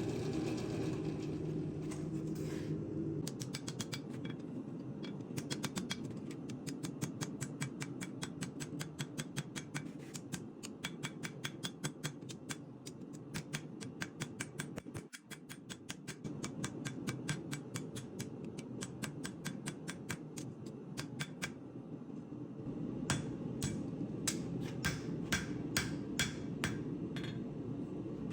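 Hand hammer forging Damascus steel on an anvil: a fast, even run of sharp blows, about three a second, over a steady low hum. The blows break off for a moment about halfway, and come back harder near the end.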